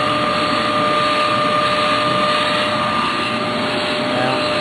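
Hoover Z400 bagless upright vacuum cleaner running steadily: a constant rush of air with a steady high motor whine, from a motor the owner takes to be brushless.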